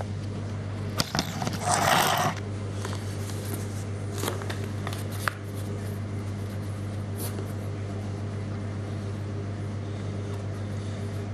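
Handling noise: a rustle with a couple of knocks about a second in, then a few light clicks, over a steady low hum.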